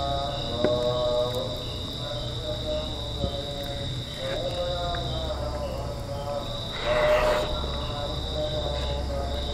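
Insects chirping: a steady high trill with a shorter chirp repeating about twice a second. Underneath is a wavering pitched sound, and a brief rustle comes about seven seconds in.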